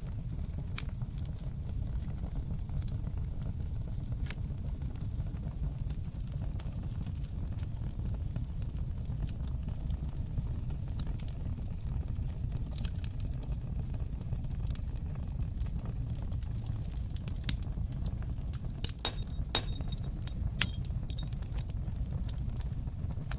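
Wood fire burning in a stone fireplace: a steady low roar with scattered crackles and pops, which come thicker near the end, including one sharp loud pop.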